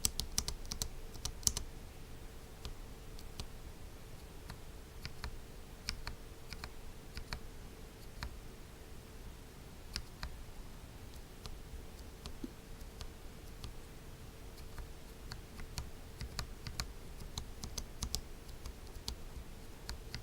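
Tactile mechanical keyboard switches, an OG Holy Panda and a halo stem in a T1 housing, pressed by hand and let go, giving faint clacks in scattered groups of quick presses. A faint steady hum runs underneath.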